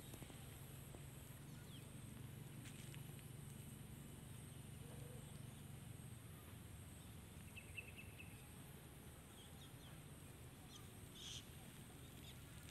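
Near silence: quiet outdoor ambience with a steady low hum and a few faint high chirps, a quick run of them about seven seconds in and a brief one near the end.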